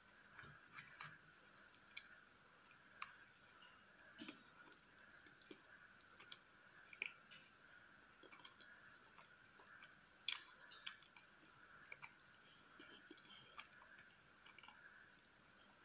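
Close-miked eating of a soft cream cake: scattered sharp mouth clicks and soft chewing, irregular and quiet, over a faint steady background tone from the microphone.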